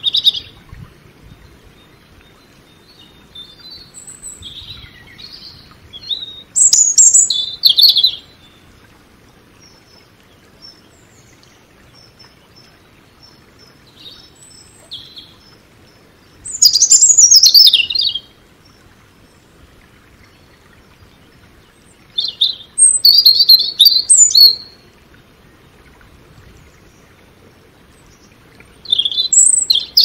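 European robin singing: about six short, high, warbling phrases of one to two seconds each, separated by pauses of several seconds.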